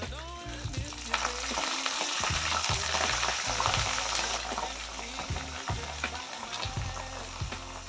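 Green leaves deep-frying in hot coconut oil in a wok, with a dense sizzle and spitting that swells about a second in, peaks around three to four seconds, then eases to a steadier bubbling.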